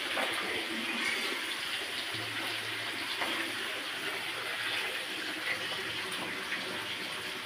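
Steady sizzle of food frying in hot oil in a pan, with faint scattered crackles.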